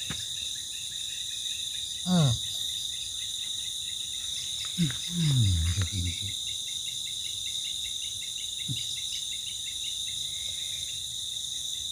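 Steady high-pitched chorus of night insects such as crickets, several layered tones droning on without a break. A few short voice sounds falling in pitch cut in about two seconds and five seconds in.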